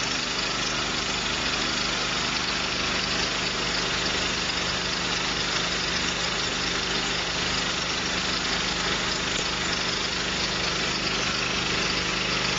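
The small gas engine of a V-Tex texture sprayer running steadily, driving the machine's hose pump.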